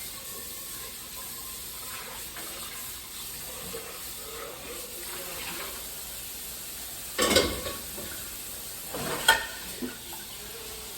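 Tap water running steadily into a kitchen sink while dishes are washed by hand, with two loud clatters of dishes knocking together about seven and nine seconds in.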